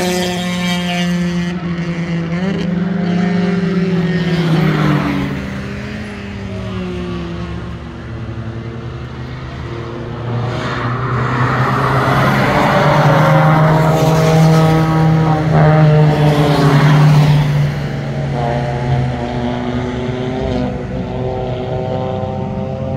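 Several cars lapping a wet circuit, their engines rising and falling in pitch through acceleration and gear changes, with the hiss of tyres on wet tarmac. About halfway through, a Toyota 86 passes close and its engine and tyre spray are the loudest part.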